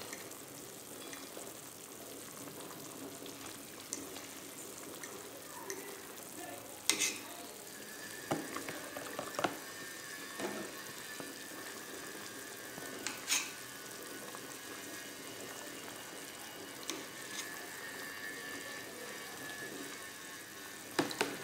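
Pot of pea soup simmering, a steady bubbling hiss, broken by a few sharp clinks and taps as a stainless mesh strainer skims foam off the top and knocks against the pot and a plastic tub.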